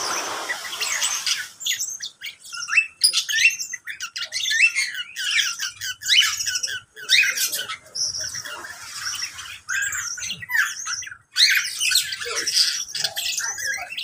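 A mixed flock of caged birds, among them cockatiels, Java sparrows and mynas, chirping and squawking over one another in a dense, continuous chatter of short high calls.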